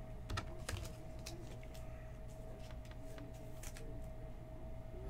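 Trading cards being handled and flipped by hand, giving scattered light clicks and slides, over a steady faint electrical hum.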